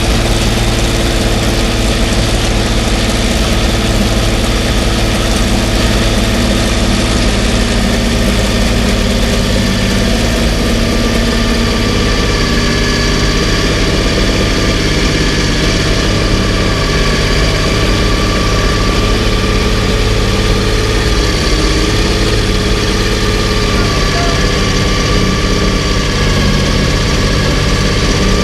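Porsche 917's air-cooled flat-12 racing engine running steadily at idle, loud and even, with only slight wavers in pitch.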